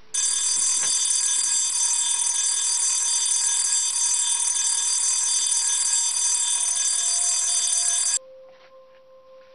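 Loud, steady alarm ringing that starts suddenly and cuts off abruptly about eight seconds in.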